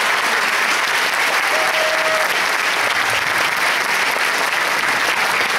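Audience applauding steadily at the end of a sung performance.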